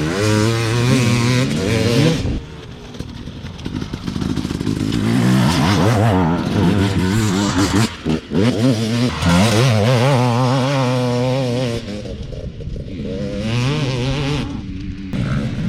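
Husqvarna TE300's single-cylinder two-stroke engine through a Fresco expansion-chamber exhaust, revving up and down repeatedly, with the throttle closed briefly about two seconds in and again about eight seconds in.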